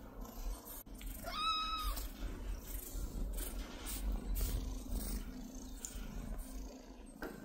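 A kitten mews once, a short high call that rises, holds and drops about a second and a half in, over a steady low purr.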